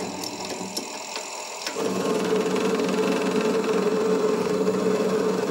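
Variable-speed mini lathe (Vevor MX-S716G) running with a steady motor hum while a turning tool cuts into a metal spider-coupling hub spinning in its chuck. About two seconds in the cut takes hold and the sound gets louder, with cutting noise over the hum.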